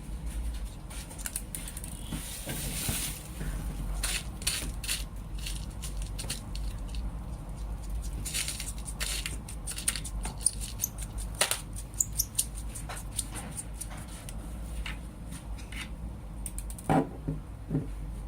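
Irregular clicks, taps and clinks of metal lightsaber hilt parts being handled and taken apart, with a few sharper knocks over a steady low hum.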